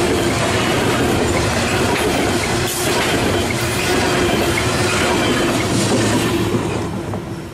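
Coal hopper cars of a long CSX freight train rolling past on the rails, wheels clattering steadily. The noise falls away near the end as the last car goes by.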